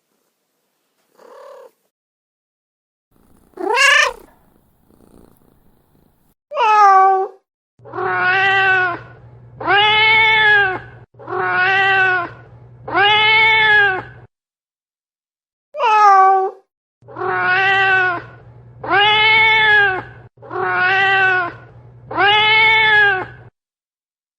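Domestic cat meowing over and over: a few short calls, one rising sharply, then two runs of four long, drawn-out meows, each rising and falling in pitch. A low steady drone runs under the long meows.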